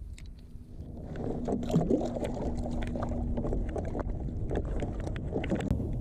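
Clicks and knocks of gear being handled on a fishing kayak, over a low rumble, with a steady low hum for a few seconds in the middle.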